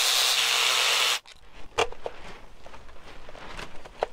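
Cordless power ratchet running steadily as it spins out an oil separator bolt, then stopping suddenly about a second in. A few light clicks and knocks follow as the plastic oil separator is worked loose by hand.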